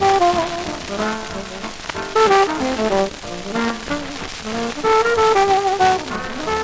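1940s big-band dance music with a brass section carrying the melody, trombones prominent.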